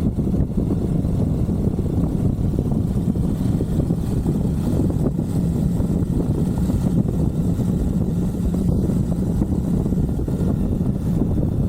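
Onboard sound of a Suzuki V-Strom 1050XT's V-twin engine running at a steady pace under way, mixed with wind rush on the microphone.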